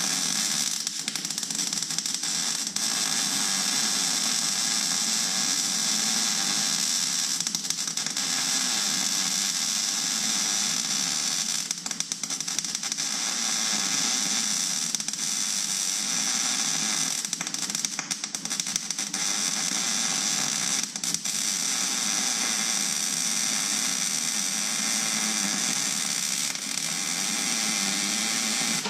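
MIG welder laying a bead on a steel tool-holder blank, a steady crackle of the arc with a few short dips, stopping abruptly at the end. It is welding material onto the holder's cut-back corner, to be machined flat afterwards.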